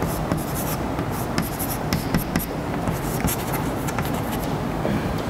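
Chalk writing on a blackboard: irregular taps and scratches of the chalk strokes.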